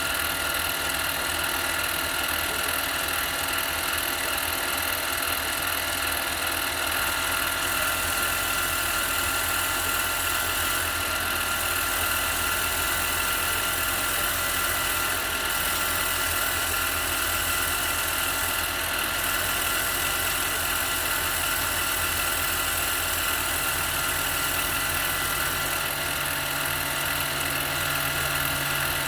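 Harbor Freight mini lathe running at a steady speed with an even, high-pitched motor whine. A low hum joins near the end.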